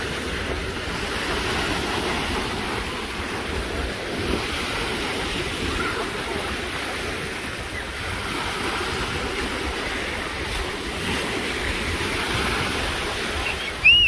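Small waves breaking and washing up over shallow water onto a sandy beach in a steady wash, with wind rumbling on the microphone.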